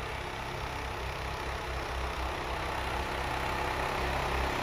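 Arctic Cat ATV on snow tracks driving slowly through deep powder: a steady low engine drone that grows a little louder.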